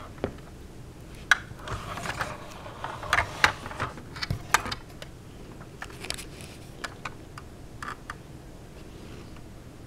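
Sharp clicks and light knocks from hands handling a Jada 1/24 scale die-cast model car and working its opening door, bunched mostly in the first half, with a few scattered clicks later.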